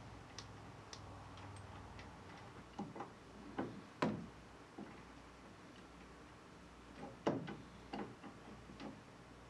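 Scattered, irregular metal clicks and clinks from a wrench being worked on a nut on a steel mud-motor engine bracket shaft. The sharpest clicks come about four seconds in and again around seven seconds.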